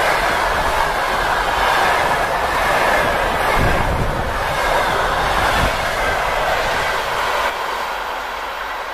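Passenger coaches of a fast train rolling past close by: a steady rush of steel wheels on rail, with a few low thumps of wheels over rail joints. About seven and a half seconds in the sound drops suddenly, then keeps fading as the train draws away.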